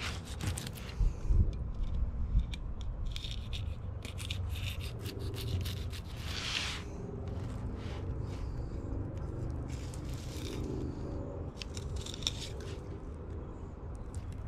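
Fillet knife slicing through a fish on a cutting board: a run of short scrapes and clicks as the blade works along the scales and bones, loudest about a second or two in.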